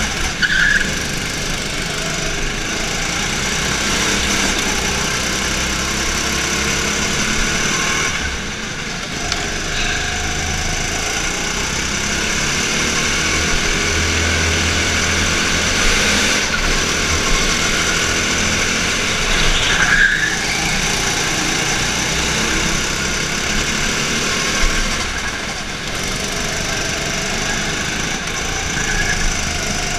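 Go-kart engine running hard under racing throttle, heard from the driver's seat, with other karts' engines around it, echoing in an indoor track hall. Brief squeals cut in about a second in and again about twenty seconds in.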